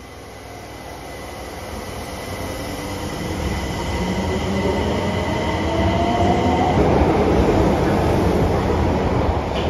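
Osaka Metro Tanimachi Line subway train pulling out of the station, getting steadily louder as it gathers speed past the platform. Its motor whine rises in pitch over a growing rumble of wheels on rail.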